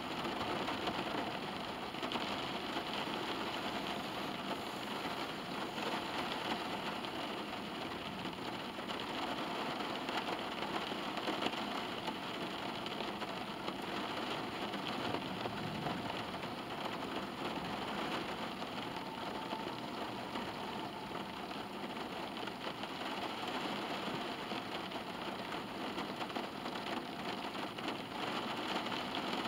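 Steady rain pattering on a car's roof and windows, heard from inside the cabin.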